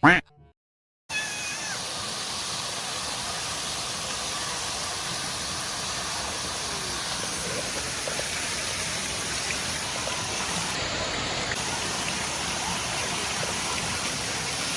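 Steady rush of flowing water, with a short rising cry right at the start and a few faint high calls over it.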